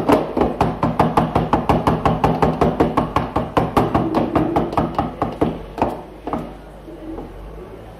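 A kitchen utensil strikes rapidly and evenly, about six strokes a second. After about five and a half seconds it slows to a few separate knocks, over a faint steady low hum.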